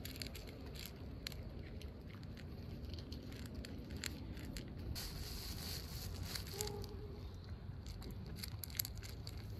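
A cat crunching dry kibble: irregular sharp crunches and clicks of chewing, over a low steady background rumble. A soft hiss rises for under two seconds about halfway through.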